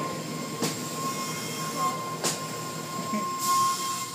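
Automatic car wash heard from inside the car: water spraying against the windows over a steady machine whine. Two sharp knocks come along the way, and a louder rush of spray follows near the end.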